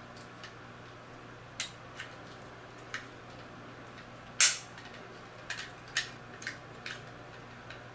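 Irregular clicks and knocks of hard plastic Beyblade launcher and grip parts being handled and fitted together, about a dozen, the loudest a sharp snap about halfway through.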